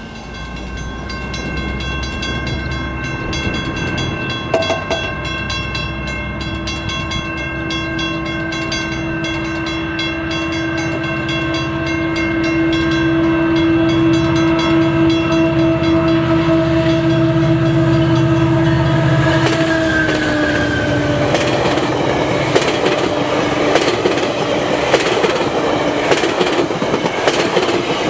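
A GO Transit commuter train with an MP40 diesel locomotive approaches sounding a long, steady horn chord, which drops in pitch about twenty seconds in as the locomotive passes. The bilevel coaches then roll by with a loud rumble and a rapid clickety-clack of wheels over rail joints.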